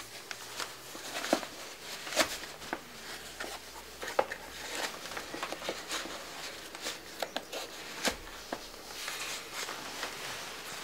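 Sneaker laces being pulled tight and tied: irregular short rustles of lace and shoe fabric with sharp little ticks and snaps scattered through.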